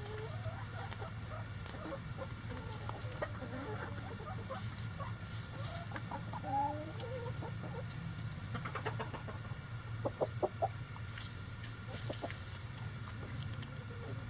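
A flock of backyard hens clucking and giving short soft calls as they forage, with a few sharper, louder clucks about two-thirds of the way through, over a steady low hum.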